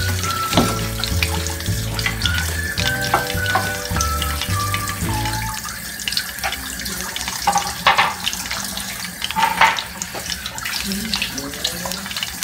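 Cooking oil heating in a wok, a steady sizzling hiss with scattered crackles and pops. Background music plays over it, its bass line dropping out about halfway through.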